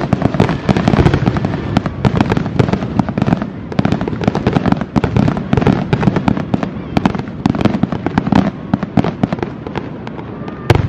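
Aerial fireworks display going off in a dense, continuous run of bangs and crackles, with one sharper, louder bang near the end.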